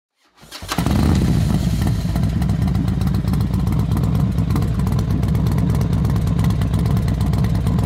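Bajaj Pulsar 220 single-cylinder motorcycle engine running steadily on the move, heard from the rider's own bike together with road noise; it fades in about a second in.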